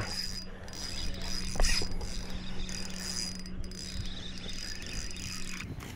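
Fishing reel being cranked: a steady mechanical whir that stops shortly before the end.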